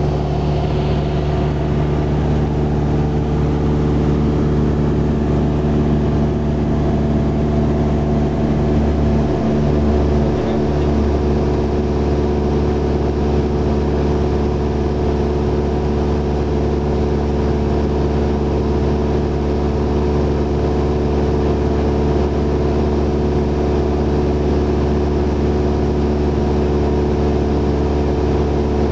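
Cessna 172SP's four-cylinder Lycoming IO-360 engine and propeller running steadily at cruise power, heard from inside the cabin.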